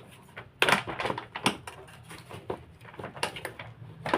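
Plastic parts of a vacuum cleaner's housing knocking and clicking as they are handled and fitted together: a run of sharp taps and knocks, a few of them louder, about a second and a half in and near the end.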